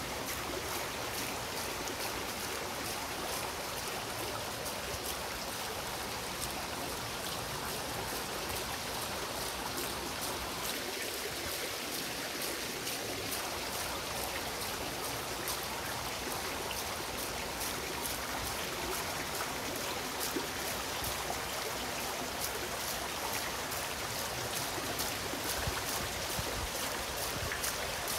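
Steady rain falling, an even hiss of water dotted with many small drop ticks.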